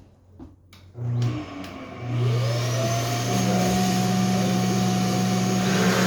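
An electric motor blips briefly about a second in, then switches on about two seconds in, spinning up with a rising whine that settles into a steady run.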